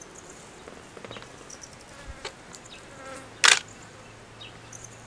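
A flying insect buzzing steadily, starting about a second in, with a few faint ticks and one loud, sharp click about three and a half seconds in.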